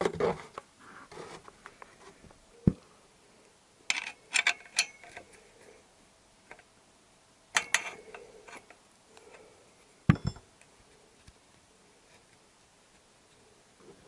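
Scattered clinks and knocks from handling a plastic oil-drain container under a Honda CBR1000F engine and fitting a ring spanner onto the sump drain bolt. There is a quick cluster of sharp clinks about four seconds in, another around eight seconds, and a duller knock about ten seconds in, with quiet between.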